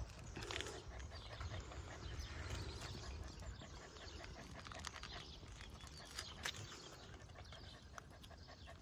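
A chow chow puppy panting quickly, over a low rumble, with a few sharp clicks near the end.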